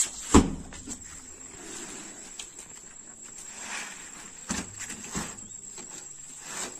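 Heavy cement sacks being dropped and dragged on a pickup truck's steel cargo bed: two loud thuds right at the start, then two softer knocks about four and a half and five seconds in. A steady high-pitched whine runs underneath.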